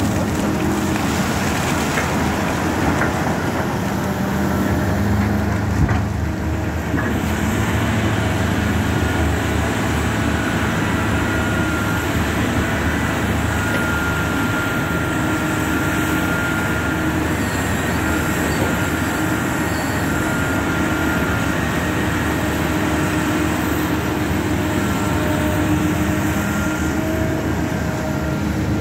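Large diesel hydraulic front-shovel excavator (BEML BE1000-1) running steadily under load as it dumps, digs and swings, its engine hum carrying a high, steady hydraulic whine through the middle of the cycle.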